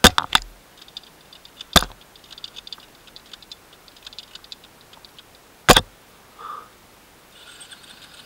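Handling noise around a stopped dirt bike with its engine off. There is a quick cluster of sharp knocks at the start, another knock about two seconds in and one near six seconds, with light clicking and rattling between them.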